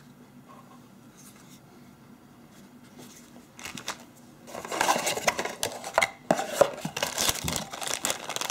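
Clear plastic bag crinkling and rustling as a wired headset sealed inside it is handled, loud and busy from about halfway in, after a few seconds of faint handling.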